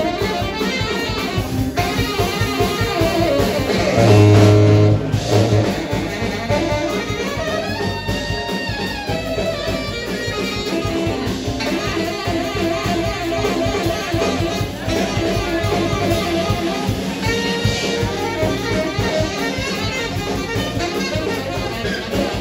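Live jazz played on electric guitar and saxophone, with a loud low note about four seconds in.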